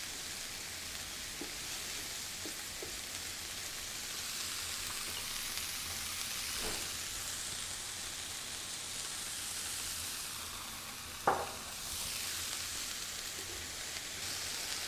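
Chopped cabbage, onions and carrots sizzling steadily in olive oil in a pan as they are stirred and softened, with a few light knocks and one sharp knock about eleven seconds in.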